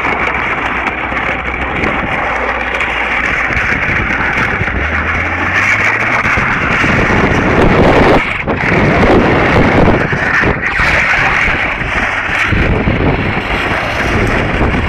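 Wind rushing over the microphone of a camera held out of a moving car, mixed with the car's engine and road noise. The rush grows louder past the middle, with two short dips.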